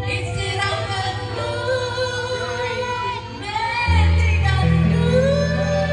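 A woman singing into a handheld microphone over amplified backing music with steady bass notes. The bass gets louder and deeper about four seconds in.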